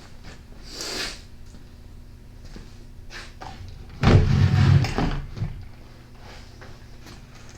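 Workbench handling noises while the trimmer is being worked on: a brief rushing noise about a second in, then a loud clattering rustle lasting about a second and a half near the middle.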